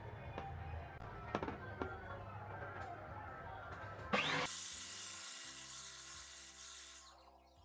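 Scattered clicks and knocks over a steady noisy hum, then a sudden sharp sweep about four seconds in, followed by a loud, even hiss for about three seconds that stops near the end.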